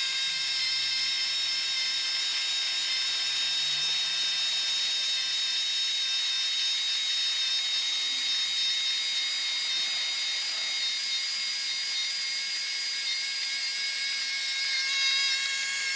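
Battery-powered toy bubble truck's small electric motor running with a steady high whine as it blows bubbles, working properly after its repair. The whine shifts slightly about fifteen seconds in.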